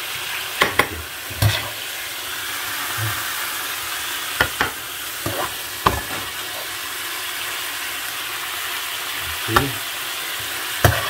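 A metal slotted spoon clinking and scraping against a frying pan and plate in a handful of sharp, irregular knocks, over the steady sizzle of a meat-and-vegetable sauce that keeps sizzling after the burner is switched off.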